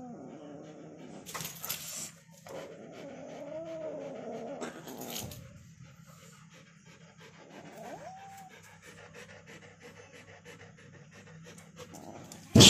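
A pet animal's wavering, whining growl with short breathy hisses or pants, then a brief rising whine about eight seconds in, and a sudden loud burst at the very end.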